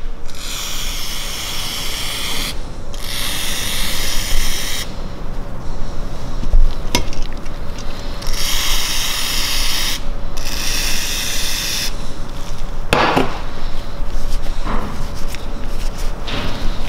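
The O-ring groove of a BMW S54 Vanos cup being cleaned: four bursts of rubbing noise, each about one to two seconds long, followed by a few light knocks in the second half.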